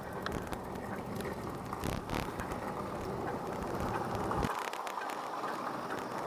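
Wind buffeting on the microphone and road rumble while riding a small two-wheeled vehicle along a street, with a couple of sharp knocks about two seconds in. The low rumble drops away briefly near the end.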